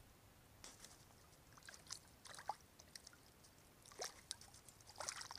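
Faint, irregular splashing and sloshing of water in an ice-fishing hole, with a hand reaching into the water to grab a hooked northern pike.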